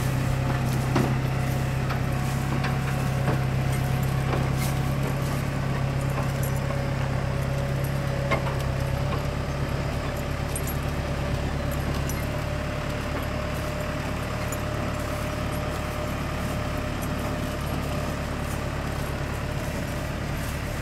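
Side-mount blueberry harvester's engine running steadily as the machine moves off, growing slightly fainter, with a thin steady whine above the engine hum and a few light clicks.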